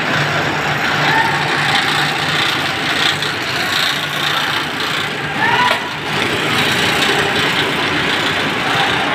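Orange grading machine running, with oranges rolling and rubbing over its metal roller bed in a steady rattle and a low motor hum. A brief high chirp sounds about five and a half seconds in.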